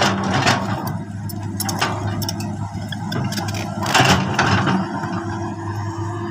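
Crawler excavator diesel engines running steadily, with a series of sharp clanks and knocks as the bucket digs into and lifts the earth, the loudest about four seconds in.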